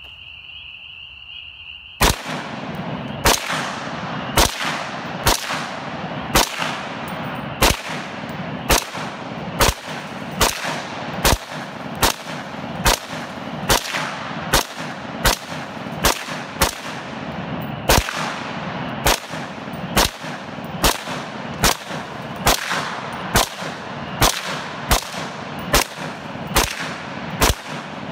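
AR-15-platform rifle chambered in 7.62×39 mm fired in semi-automatic, shot after shot at about one a second, some two dozen rounds, each report trailing off. A steady high tone is heard for the first two seconds, before the first shot.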